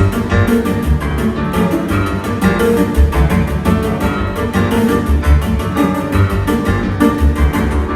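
Live piano-and-electronics music: a deep, heavy bass line under a fast, even pulse of sharp attacks and dense chords.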